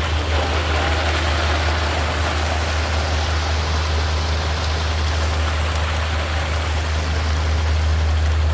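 Machinery engine running steadily with a low hum, over an even rushing noise like water in a stream, as wet concrete is poured.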